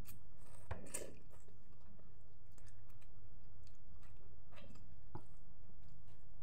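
A person eating fried noodles with chopsticks: chewing and drawing noodle strands into the mouth, with a few short clicks and smacks. A steady low hum sits underneath.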